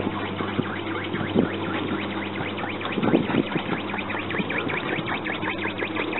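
Electronic sound effects from a 1980s J.M. Kiddie Rides coin-operated helicopter ride's speaker: a rapid stream of short pulses over a steady low hum from the running ride.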